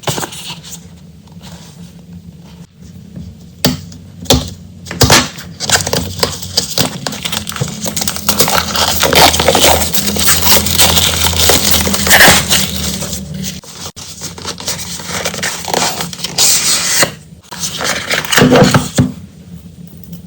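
Packaging and paper stationery being handled: crinkling, scraping and rustling, with several sharp taps and knocks near the start. A low steady hum runs under the middle part and stops about two-thirds of the way in.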